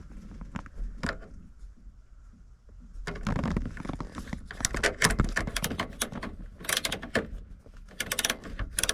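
Ratcheting wrench clicking in quick runs as it tightens a nut, with metallic clatter; the clicking grows denser and louder from about three seconds in.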